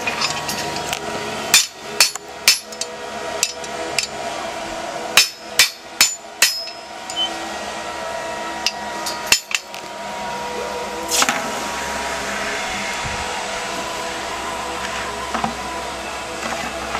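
Hand hammer striking hot steel on an anvil during forging: about ten sharp blows in the first seven seconds, then one more about nine seconds in. A steady machine hum runs underneath.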